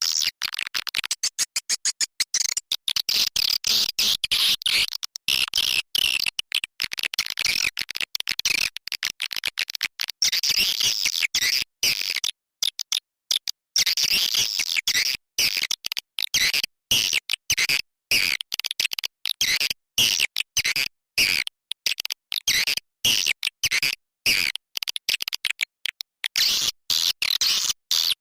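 Swiftlet call recording: dense, rapid, high twittering chirps of swiftlets, broken by many short silent gaps, played as a lure call to draw swiftlets into a nesting house.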